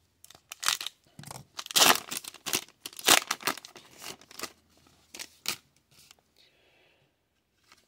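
Foil wrapper of a trading-card pack being torn open and crinkled, in a run of sharp bursts over the first five seconds or so, then fainter rustling as the cards are pulled out.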